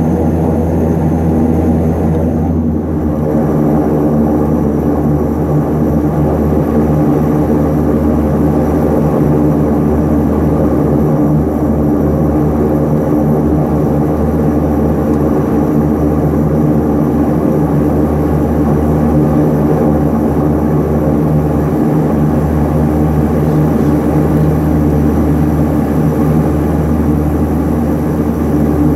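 Antonov An-24's Ivchenko AI-24 turboprop engines and propellers running steadily while the aircraft taxis, heard from inside the cabin as a constant layered drone with a strong low hum.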